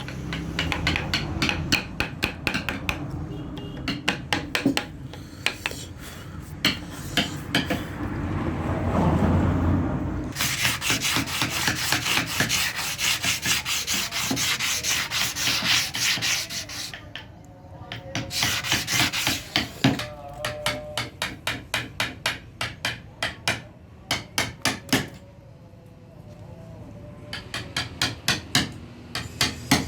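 Hand carving tools working wood: runs of short, sharp scraping and tapping strokes, several a second, with brief pauses between runs.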